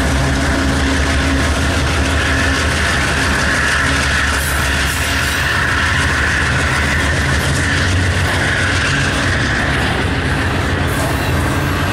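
Double-stack intermodal well cars rolling past close by, with steady wheel-on-rail noise, over the low running of the GE diesel locomotives pulling the train away under power. A steady high whine rises out of it from about two seconds in and fades near nine seconds.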